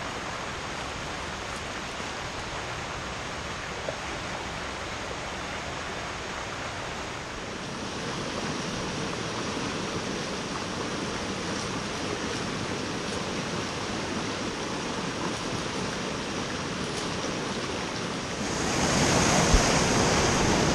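Small creek running over rocks, a steady wash of water that grows louder near the end.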